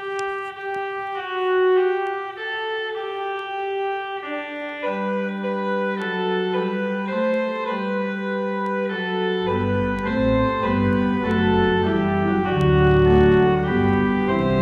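Organ music: a single held melody line, joined by a lower part about five seconds in and by a bass line about halfway through, filling out the sound.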